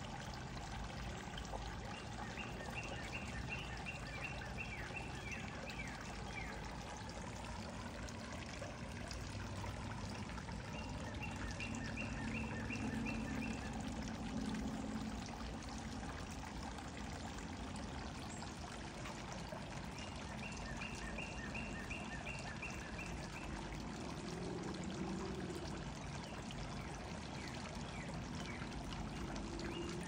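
Steady rushing background noise like running water. Over it, a small songbird's fast trill of high notes about three seconds long repeats roughly every nine seconds, with a few low, soft dove coos.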